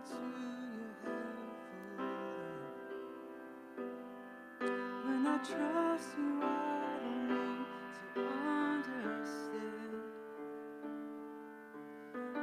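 Church worship band playing instrumental music, led by sustained keyboard chords that change every second or so.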